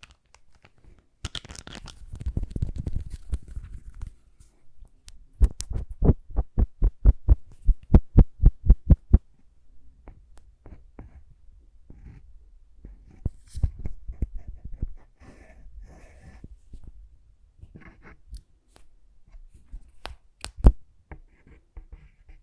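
Close-miked lip balm ASMR handling sounds: a rustling scrape, then a fast even run of sharp clicks at about five a second, followed by scattered softer clicks and rubs.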